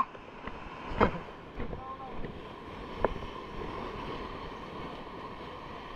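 Steady wind on the microphone over sea surf, with a sharp knock about a second in, a short faint voice around two seconds, and a small click a second later.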